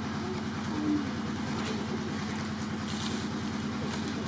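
A steady low mechanical drone, like an engine idling, with an even pulsing beat. A short squeak sounds about a second in, and a few light clicks or rustles.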